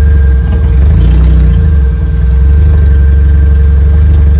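Batman Tumbler replica's engine running, a loud, deep, steady rumble with a thin steady whine above it, heard from inside the vehicle.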